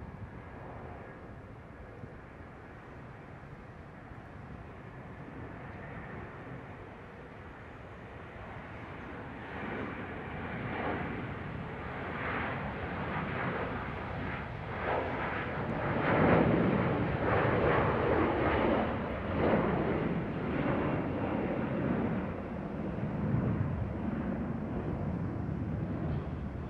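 Boeing 737-400's CFM56-3 turbofan engines at takeoff power during the takeoff roll and climb-out. The jet noise is steady and fairly quiet at first, grows louder from about ten seconds in, and is loudest just after the aircraft lifts off.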